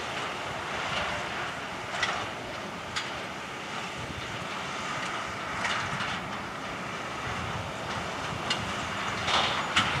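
New Holland T7.210 tractor running steadily as it pulls a Massey Ferguson small square baler working in hay, heard from a distance. Occasional sharp clacks from the baler come through, more of them near the end.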